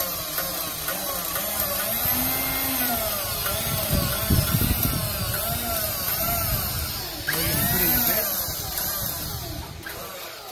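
The powered winch motor of a 6000 lb truck crane runs under load as it hoists a welder. Its whine keeps rising and falling in pitch and gets louder about seven seconds in.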